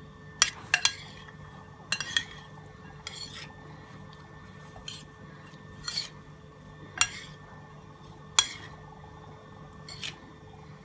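Utensils clinking and knocking against a bowl as a shredded cabbage salad is tossed and mixed, in irregular strikes about once a second, over a faint steady hum.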